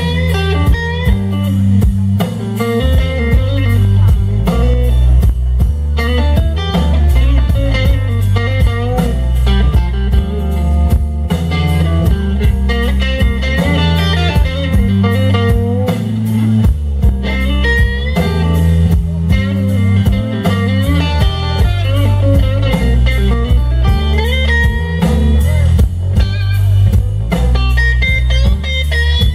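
Live blues band playing a slow blues instrumental passage: a lead electric guitar with bending notes over bass guitar and drums.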